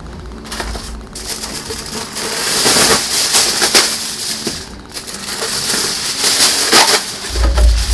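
Aluminium foil being pulled out and handled: a crinkling, crackling rustle that gets louder about two seconds in.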